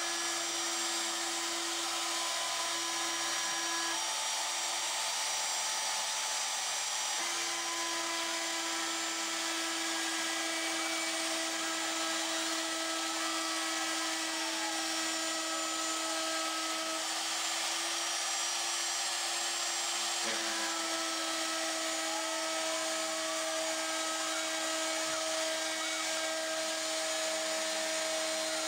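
Pilot Pro CNC router milling aluminum: the spindle runs steadily with a high hiss and a constant hum-tone as the end mill cuts. Fainter tones change and glide in pitch now and then as the machine moves.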